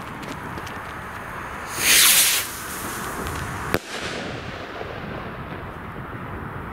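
Small Funke Liliput brocade firework rocket bursting with one sharp, short bang a little under four seconds in. About two seconds in, a loud rushing hiss lasts under a second.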